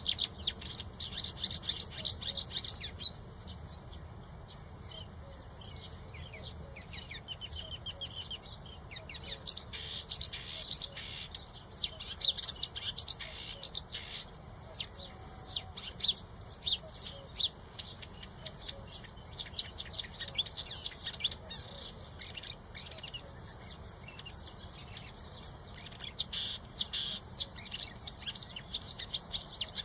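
Small songbirds chirping in rapid flurries of short high-pitched notes, with quieter stretches at about 3 to 9 seconds, 14 to 18 seconds and 22 to 26 seconds.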